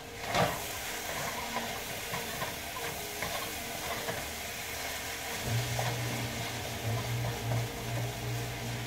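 Cabbage sizzling in a frying pan on high heat as it is stirred, the utensil scraping the pan, with a brief louder scrape just at the start. A low steady hum comes in about halfway through.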